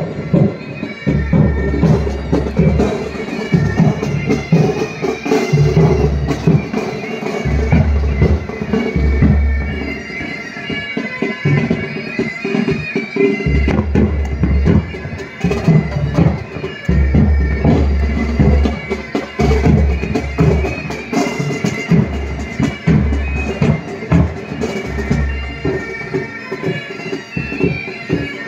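Military pipe and drum band playing: bagpipes sounding a melody over their steady drones, with snare drums and regular bass drum beats.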